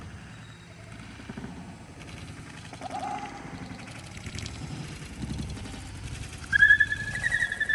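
A retriever whining in a high, wavering pitch, starting loudly about two-thirds of the way in and running on over faint background movement.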